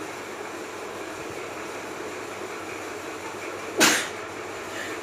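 A woman sneezes once, sharply, about four seconds in, over steady background noise; the sneeze is brought on by sniffing snuff.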